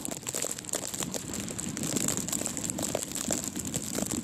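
A plastic bag wrapped around the recording tablet crinkling and rustling against its microphone as strong gusty wind blows it, a dense run of irregular crackles.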